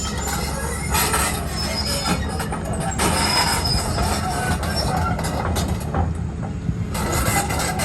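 Caterpillar 320D2 excavator travelling on its steel tracks. The track links squeal and clank over the steady low run of the diesel engine, with a few thin high-pitched squeals.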